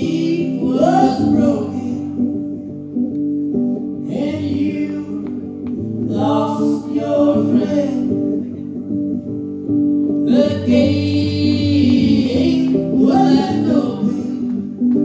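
Live garage-rock band playing: electric guitar holding ringing chords under a singer's vocal phrases, which come in short runs every couple of seconds.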